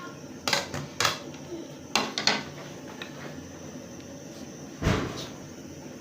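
Several sharp knocks and clatters of kitchenware being handled: a few spread over the first two and a half seconds, and the loudest one near the end.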